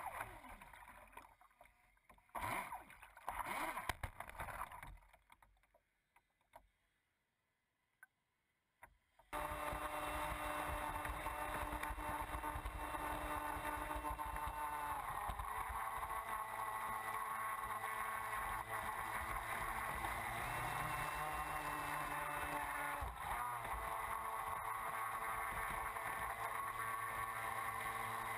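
Miss Geico RC catamaran heard from its onboard camera. For the first few seconds there are short bursts of motor and splashing, then a near-silent gap. From about nine seconds in, the boat runs at speed with a steady motor whine over rushing water, the pitch stepping a few times as the throttle changes.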